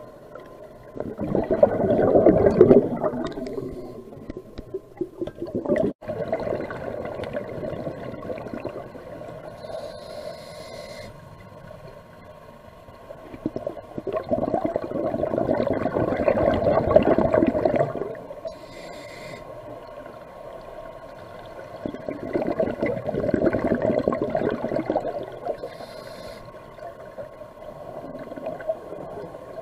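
Scuba regulator breathing heard underwater: three long bubbling rushes of exhaled air, with shorter, higher hisses of inhaling between them. A single sharp click about six seconds in.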